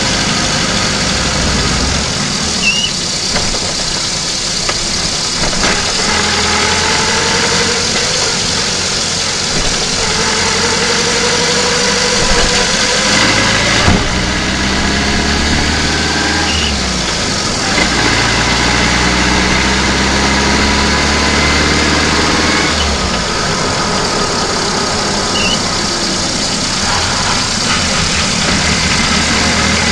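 VAZ-2109 petrol engine heard from inside its own engine bay while the car is driven. The engine note rises and falls in pitch several times with throttle and road speed, and there is one brief click about halfway through.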